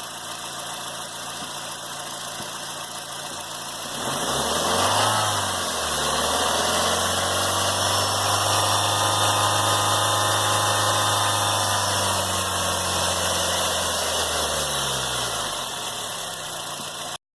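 Engine-driven accessory belt system of a 2007 Honda Fit with a bad idler pulley bearing, giving a droning whine. About four seconds in the drone gets louder and rises in pitch, holds steady, then falls away before cutting off near the end.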